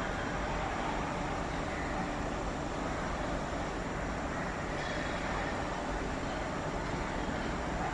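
Steady urban background noise: a constant rumble and hiss of distant road traffic.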